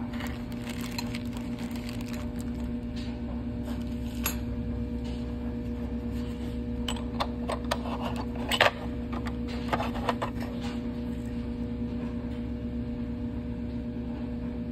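Plastic wrapping crinkling and an airbrush being handled in its moulded case: scattered rustles and light clicks, busiest in the middle, with one sharp click about eight and a half seconds in. A steady low hum runs underneath throughout.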